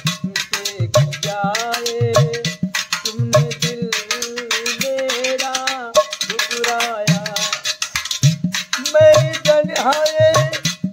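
A large aluminium water pot played as a hand drum, giving a rhythm of deep thumps and sharp metallic slaps and taps. A man sings a drawn-out, wavering melody over it.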